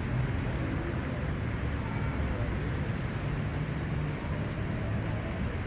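Steady outdoor background rumble and hiss with a low hum, with no distinct events.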